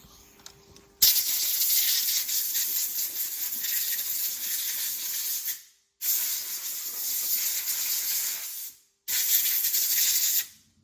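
A pressurized jet hissing hard in three long bursts that start and stop sharply, the last one shorter, as a socket is cleaned.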